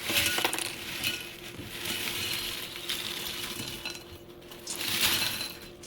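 Crunchy fried green plantain chips being poured out, a dry rattling, clinking rush of chips against a dish. It is strongest in the first few seconds, eases off, then comes again in a shorter burst about five seconds in.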